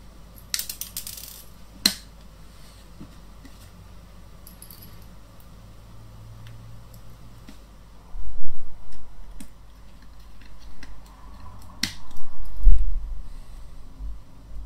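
Handling of a Yongnuo YN-560 flash head's plastic housing and small screws on a tabletop as it is fitted back together. There is a brief rustle, a few sharp clicks, and dull bumps against the table in the second half.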